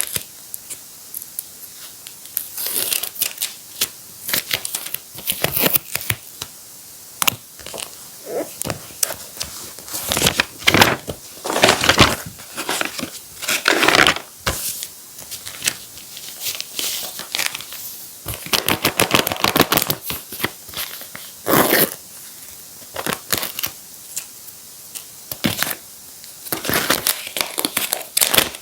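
Paper crafts handled close up: crinkling, rustling and tearing in irregular short bursts, with sharp clicks scattered between them.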